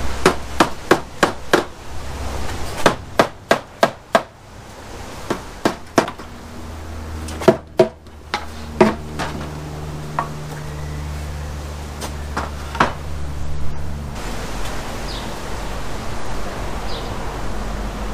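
White rubber mallet knocking the wooden door frame and its panel boards together: a quick run of strikes over the first few seconds, then scattered blows that stop about fourteen seconds in.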